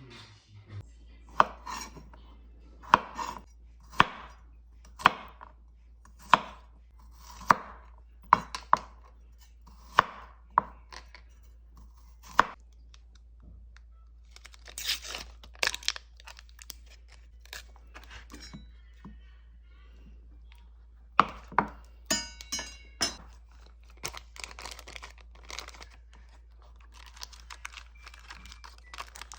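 Knife chopping on a cutting board in slow, evenly spaced strokes about once a second while shrimp are prepared for grilling, with a few more cuts later and rustling in between.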